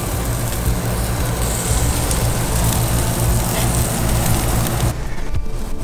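Lobster tails sizzling on a hot gas grill over a steady low rumble. About five seconds in, the sizzle cuts off and background music begins.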